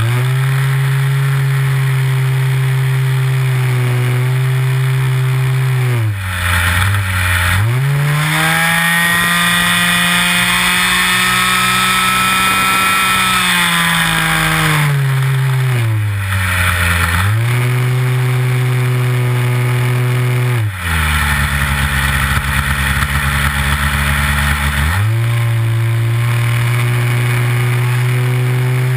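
Nitro glow engine of a Big Stik 60 RC airplane, heard close up from on board, running steadily with its pitch swinging as the throttle changes. It climbs higher for several seconds around the middle, and about three quarters through it drops to a low throttle setting before picking up again.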